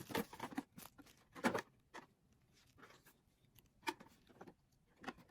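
Scattered faint rustles and clicks of things being handled, a few separate short sounds with quiet between them, the clearest about a second and a half in and near four seconds in.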